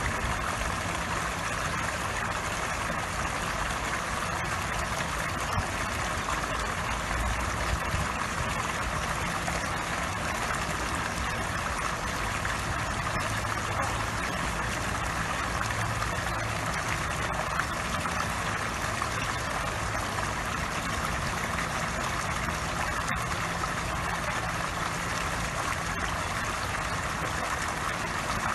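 Garden pond fountain jet gushing steadily and splashing onto the pond surface, over a low steady hum.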